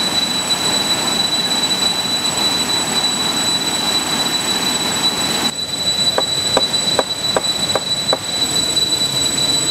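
Rushing stream water, a steady wash of noise. Just past the middle it drops away for about three seconds while a series of about seven short, evenly spaced notes sound, roughly three a second, and the rush returns near the end.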